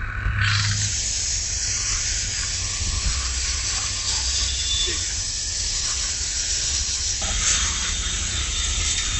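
Gas ring torch hissing steadily as its flames heat the butted rebar ends for pressure welding, cutting in about half a second in. A low steady hum runs underneath.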